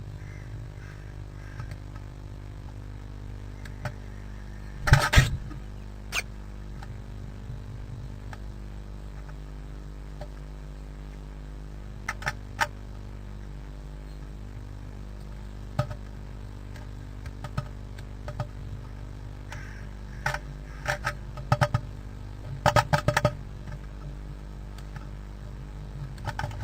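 Blue tit inside a wooden nest box, heard close up: one loud, short sneeze about five seconds in, then scattered sharp taps of her beak pecking at the entrance hole, with a quick cluster of taps near the end. A steady low hum runs underneath.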